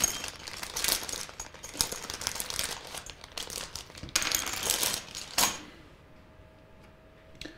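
A clear plastic bag crinkling and small black plastic connector housings clattering onto a cutting mat as they are tipped out. The rustling and clicking stop a little over two-thirds of the way through.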